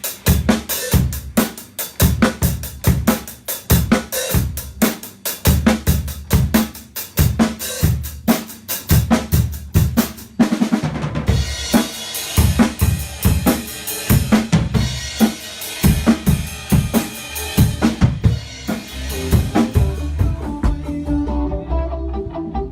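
Drum kit played in a fast rock pattern of kick and snare hits; about halfway through, cymbals wash over the continued kick drum.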